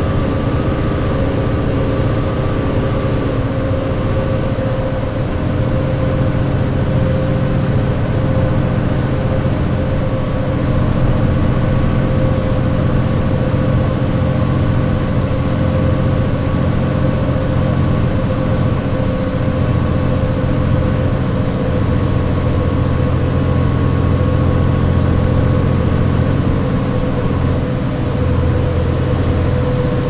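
2009 New Flyer D40LFR transit bus with a Cummins ISL diesel engine and Allison B400R six-speed transmission, running at a steady speed: a low diesel drone and road noise, with a steady gear whine from its MAN axles.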